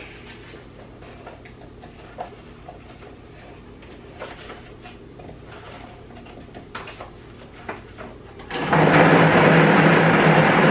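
A few light knocks as carrot pieces drop into a blender jar, then about eight and a half seconds in a countertop blender starts suddenly and runs loud and steady at full speed, blending the carrots into the drink.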